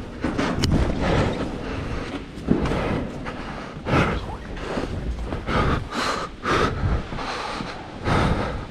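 Bumps, clothing rustle and hard breathing on a body-worn action camera as a runner climbs down through a railing and moves across a bare concrete floor: a string of short, uneven bursts of noise.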